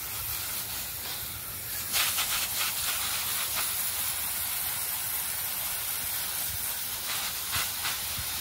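Garden hose nozzle on a fine mist setting, spraying a steady hiss of water over garden plants. The hiss grows a little louder about two seconds in, with short crackly patches there and again near the end.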